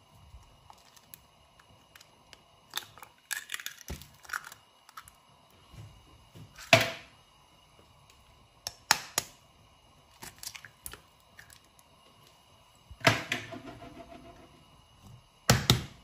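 Eggs cracked against the rim of a bowl: a series of sharp taps and knocks every second or two, in small clusters, the loudest about seven seconds in.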